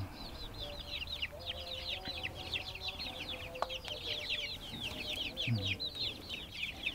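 A flock of young kampung chickens peeping: a steady stream of many short, high, falling chirps overlapping one another.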